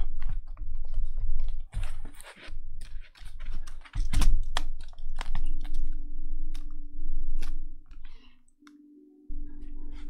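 Plastic clicks and knocks from a Logitech K800 wireless keyboard as its back panel is pressed down and its clips snap into place. The keyboard is then handled and its keys pressed, giving scattered key clicks, with a steady low hum joining about halfway in.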